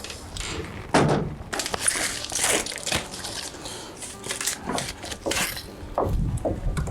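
A run of knocks, clicks and scraping from handling hardware or wood, with a low rumble coming in near the end.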